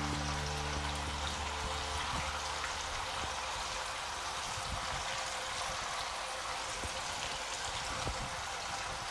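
Marinated chicken pieces deep-frying in hot sunflower oil in a kadai: a steady sizzling hiss with small crackles. A low held music chord fades out in the first two seconds.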